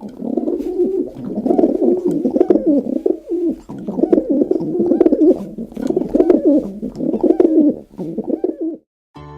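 Pigeons cooing repeatedly and close up, in low, wavering calls with short breaks, cutting off abruptly near the end.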